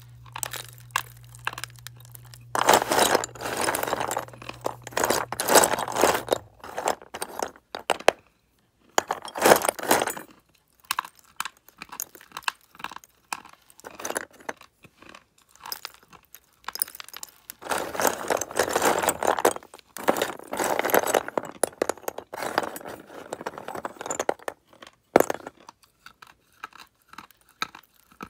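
Soft slate pencils being bitten and chewed close to the microphone: bouts of gritty crunching a few seconds long, with short pauses between them.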